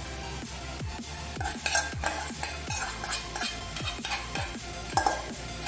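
Utensil scraping and clinking against metal cookware in irregular bursts from about a second in, as beaten eggs are poured and stirred into a pot of lomi soup. Under it runs electronic background music with a steady bass beat.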